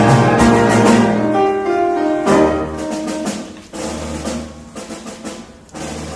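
Live pit band of a stage musical playing instrumental music. Full sustained chords fill the first couple of seconds, then the music thins to spaced drum hits over low bass notes.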